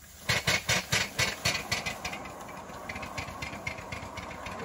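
Van Brocklin-built 3.5-inch gauge live steam 4-6-0 ten-wheeler locomotive chuffing as it starts off, about four sharp exhaust beats a second. The beats are loud at first and grow fainter after a couple of seconds as it pulls away.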